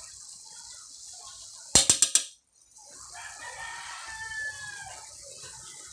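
A rooster crowing once, a drawn-out call of about two seconds. It comes just after a quick run of four or five loud clicks a little under two seconds in.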